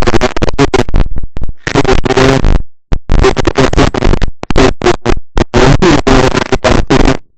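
Loud crackling microphone static that cuts in and out in choppy, irregular bursts, with brief dead gaps, several of them around the middle and one near the end: a faulty mic recording static instead of the room.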